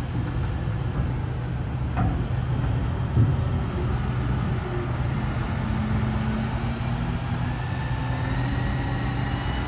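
Engine of a truck-mounted crane running steadily as the crane hoists a flood-wall panel, with a couple of knocks about two and three seconds in.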